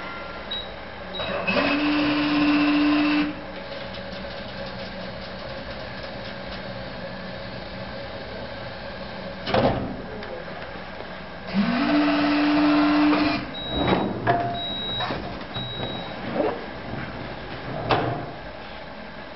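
Snack vending machine's belt-tray motor spinning up and running for about two seconds, twice, driving a belt shelf to deliver a product. Sharp knocks in between and after, and a few short high beeps.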